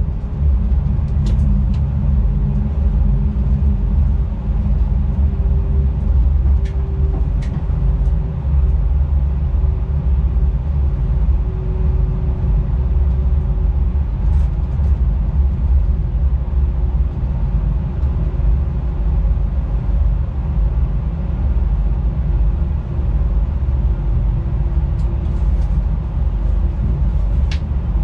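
Electric freight locomotive under way, a steady low rumble with a faint hum that drifts slightly in pitch, and a few faint ticks.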